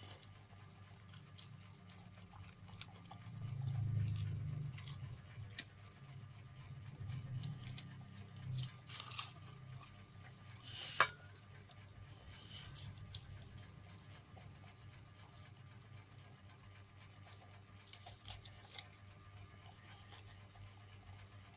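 A dog chewing and crunching its food, with scattered small clicks and one sharp click about halfway through, over a faint low hum.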